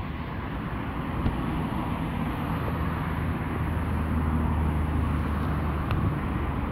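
Steady low engine hum over outdoor background noise.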